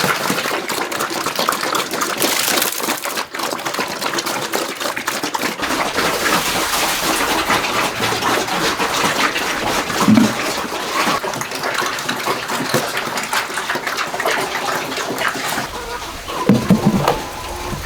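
Steady water noise, dense with small splashes and clicks, with two short, lower sounds about ten seconds in and near the end.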